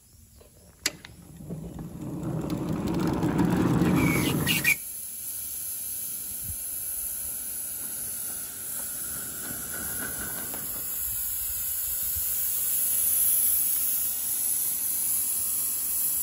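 A 5-inch gauge miniature locomotive running up close, its rumble rising and then cutting off suddenly about five seconds in; after that a miniature steam locomotive hissing steam steadily.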